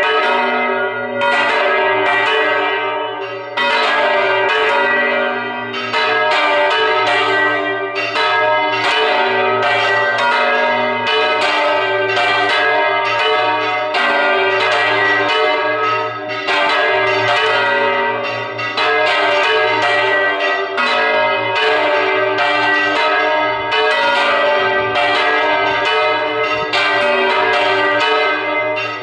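Several church bells rung by hand, striking in quick succession and overlapping into one continuous, ringing peal that swells and dips every two to three seconds.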